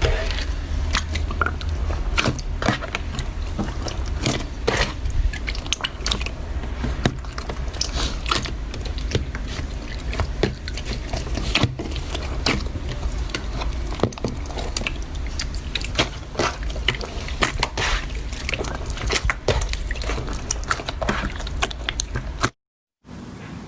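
Slime being squeezed and worked by hand, giving a dense run of irregular sticky, wet clicks and crackles. It breaks off in a short silence about a second before the end, and a quieter sound follows.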